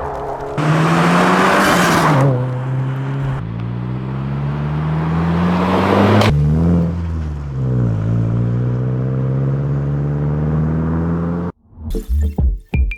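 Subaru WRX (VB) 2.4-litre turbocharged flat-four running through its exhaust under acceleration, the pitch climbing and dropping back several times as through gear shifts. Near the end it cuts abruptly to music with a beat.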